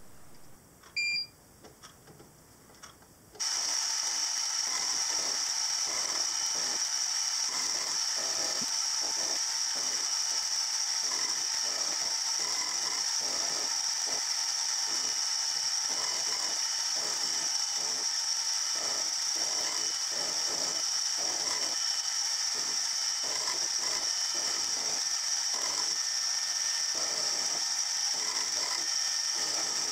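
Small milling machine starting up about three seconds in, then running steadily with a high whine and a regular pulse about twice a second as the cutter faces the top of a cast-iron crank web casting.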